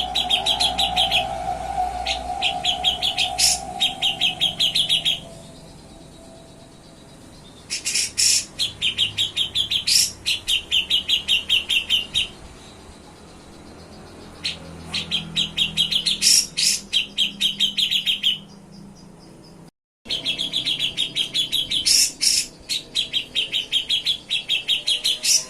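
Grey-cheeked bulbul (cucak jenggot) singing in four bursts of rapid trilling, each a few seconds long and opened by a few sharp, loud notes, with short pauses between them.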